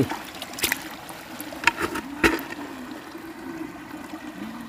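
Small fish and water sloshing in a plastic bucket as a hand stirs through the catch, with four sharp splashes or knocks in the first two and a half seconds, over a steady wash of water noise.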